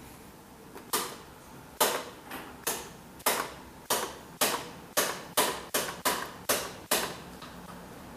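DGT 2000 chess clock's plastic rocker lever being pressed from side to side, about fourteen sharp clicks that come faster after the first few. Each press switches the running side, adding the per-move time increment.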